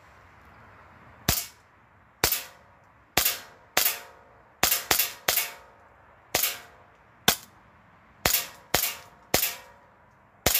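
Novritsch SSP5 gas-blowback airsoft pistol on a CO2 magazine, firing about a dozen single shots at an uneven pace, some in quick pairs or threes. Each shot is a sharp crack with a brief ring.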